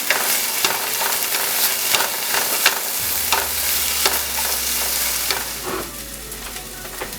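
Chopped onion and garlic sautéing with ground turkey in a frying pan: a steady sizzle, with a spatula scraping and tapping the pan every half second or so as they are stirred. The sizzle and stirring quieten near the end.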